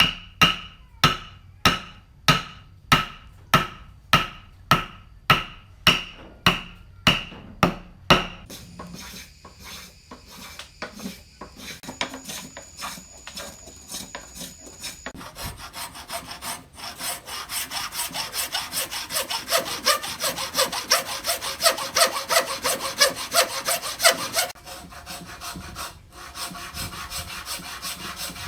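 Hand woodworking on a timber joint. It opens with about sixteen evenly spaced blows, two a second, each with a short metallic ring, as a chisel is driven into wood. Quieter scraping and light taps follow, and from about halfway a hand saw cuts wood in quick, steady strokes.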